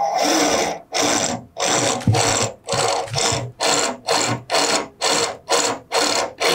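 Power drill boring through the school bus's sheet-metal roof in short pulses, about two a second, the trigger eased on and off so the bit goes through gently.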